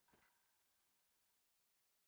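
Near silence: faint background hiss fading out, then dead silence from about one and a half seconds in.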